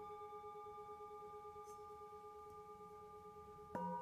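A struck singing bowl rings with a long, slowly fading tone made of several pitches. Just before the end a second strike sounds at a different pitch.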